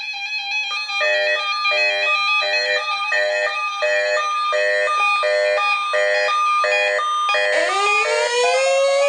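A short repeating musical figure, a cluster of notes a little under twice a second over a held high tone. About seven and a half seconds in, a siren winds up, rising steeply in pitch and settling into a steady wail.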